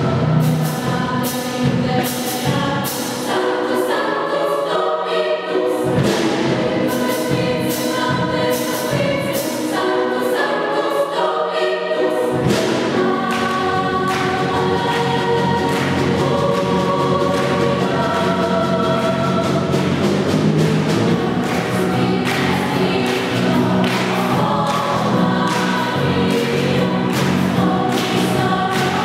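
Girls' choir singing in several parts over a steady beat. The low bass line drops out for several seconds and comes back fuller about twelve seconds in.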